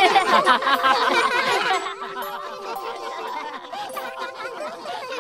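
Several cartoon voices laughing and chattering together over light background music. The voices drop away about two seconds in, leaving quieter music with a few held notes and fainter chatter.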